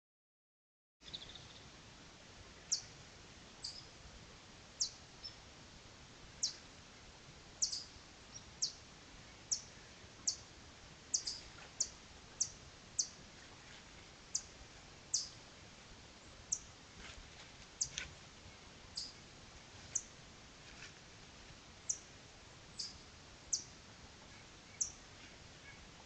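A bird's sharp, high chip calls, repeated roughly once a second over a steady faint hiss, starting about a second in after a moment of silence.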